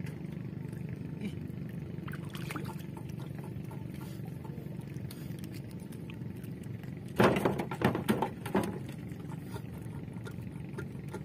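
Small fishing boat's engine running with a steady low hum. About seven seconds in comes a short run of loud splashes and knocks from water and gear at the boat's side.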